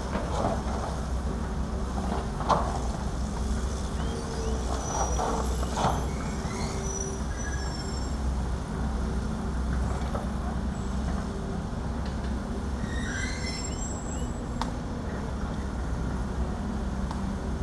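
Heavy diesel earthmoving machines (excavators, a bulldozer and dump trucks) running steadily with a deep engine rumble, broken by a few metallic clanks and brief high squeaks.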